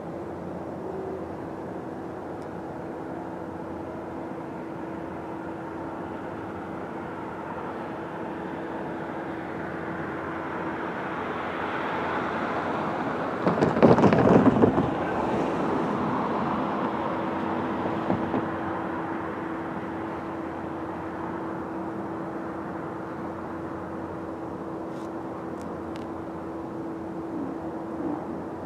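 Diesel locomotives of an approaching CSX freight train running in the distance: a steady low engine drone over a rumble. A louder rushing noise swells to a crackling peak about halfway through and then fades.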